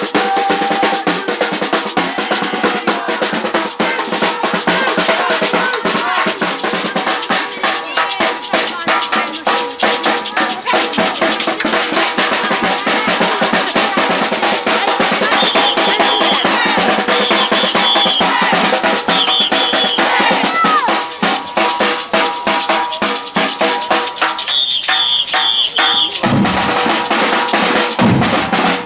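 Batucada percussion group playing a driving samba rhythm on bass drums and snare drums, dense and fast, with a few short high-pitched calls over the drumming in the middle and near the end.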